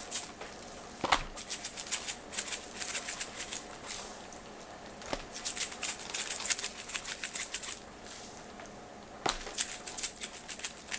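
Garlic powder shaken from a spice shaker onto pork chops: quick rattling clicks in three spells, each starting with a light knock, with short pauses between them.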